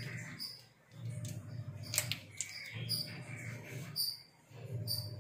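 Birds chirping in the background: short, high chirps repeated every half second to a second, with a couple of sharp clicks about two seconds in and a low hum underneath that drops out twice.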